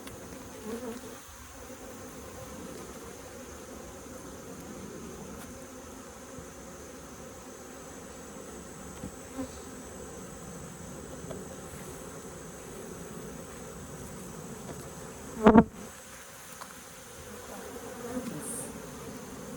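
Honeybees buzzing around an opened hive in a steady, continuous hum. A single sharp knock sounds about four-fifths of the way through.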